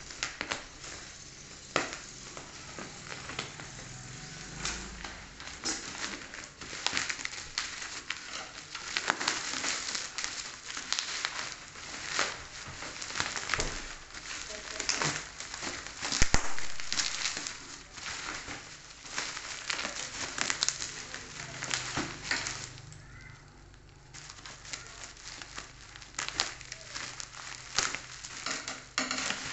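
Black plastic parcel wrapping crinkling and crackling irregularly as it is handled and pulled open, with a sharp click about halfway through and a short lull near the end.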